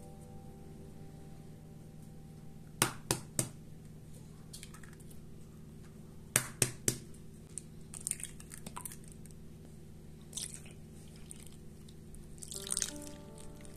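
Eggs being cracked: a group of three sharp taps, then three more a few seconds later, with soft wet squelches and small clicks as the shells open and the eggs drop onto flour. Near the end, milk starts pouring into the bowl with a short splashing hiss.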